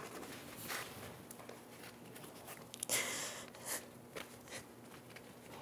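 Faint rustling and shuffling of a person shifting on a debris-strewn floor, with a few soft scuffs and light clicks over a quiet hiss.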